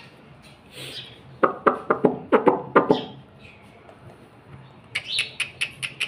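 Ring-necked parakeet chattering: a quick run of short pitched notes about a second and a half in, then a few short high chirps near the end.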